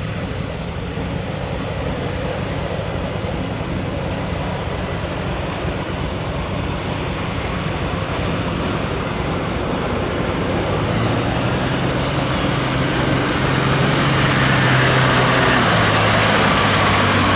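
A Toyota Land Cruiser HDJ80's straight-six turbodiesel pulls the truck through deep mud, with mud and water splashing under its 40-inch Super Swamper tyres. The engine grows louder and steadier from about ten seconds in as the truck comes close.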